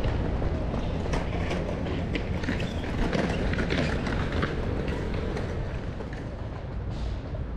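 Busy city square ambience: a steady low rumble with many scattered sharp clacks and taps.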